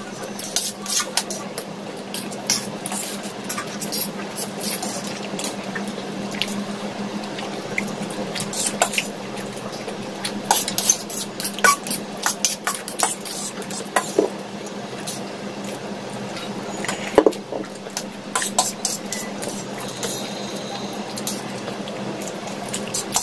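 Metal forks clinking and scraping on stainless steel plates in irregular sharp clicks as two people eat noodles, with noodle slurping and chewing. A steady low hum runs underneath.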